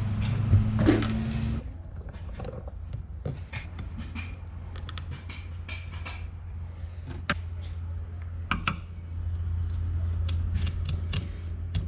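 Scattered small metallic clicks, clinks and knocks of tools and parts being handled while the fuel tank is worked off an old wood chipper, over a steady low hum.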